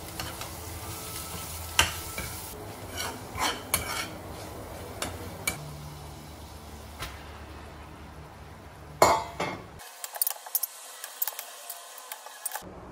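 Hakka noodles being stir-fried in a pan: a utensil scraping and clinking against the metal over a steady sizzle. There are sharp knocks about two seconds in and about nine seconds in, then a quick run of clinks near the end.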